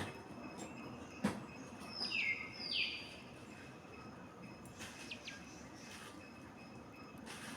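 Two loud, high bird calls in quick succession about two seconds in, each sliding in pitch, with a sharp click just before them and faint steady high tones underneath.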